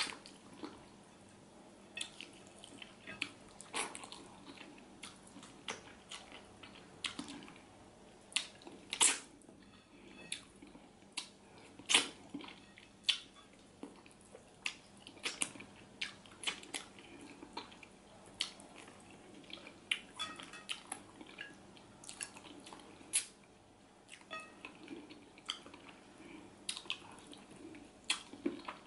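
A person eating catfish head from pepper soup with their fingers: chewing, lip smacks and finger-sucking, heard as irregular sharp wet clicks and smacks, a few of them louder.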